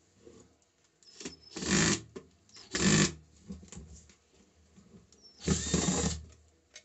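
12-volt IZOM cordless drill driver running in three short bursts, the middle one the briefest, as its bit works a stubborn rusted screw loose from a metal fan housing.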